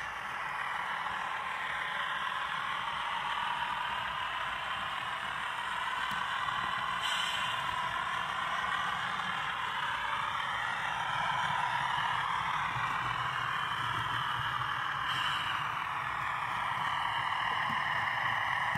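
HO-scale model train, a diesel locomotive pulling hopper cars, running along the track: a steady whirring noise of motor and wheels, with two sharp clicks about seven and fifteen seconds in.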